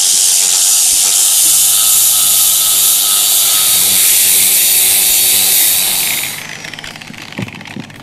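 Angle grinder with a sanding disc grinding down the rough painted roof surface, a loud steady hiss of abrasive on paint; the grinding stops about six seconds in. A light knock follows near the end.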